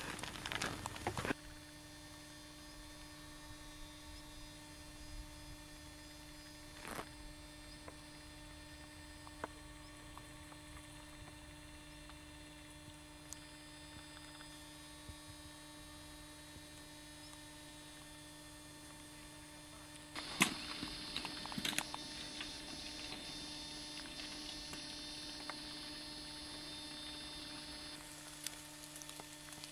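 Steady low electrical hum made of several faint unchanging tones. A burst of noise in the first second cuts off suddenly, and a few faint clicks and rustles come about two-thirds of the way through.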